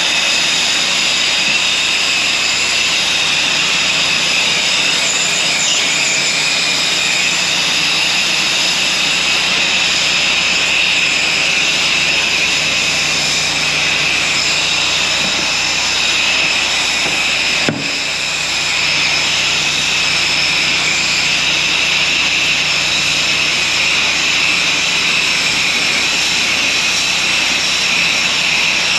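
Pressure-washing equipment running steadily with water spraying: a continuous loud hiss with a high whine. There is a sharp click and a brief dip in level about 18 seconds in.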